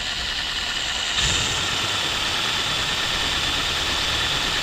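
Cordless drill running steadily in reverse, grinding the cutting end of a small screw extractor into a stripped key-fob screw head to cut notches for the extractor to grip, with metal shavings coming off the screw.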